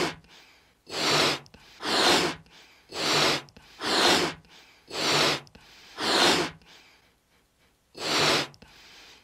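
A man's loud, rhythmic breaths or puffs, about one a second and eight in all, with a short pause near the end.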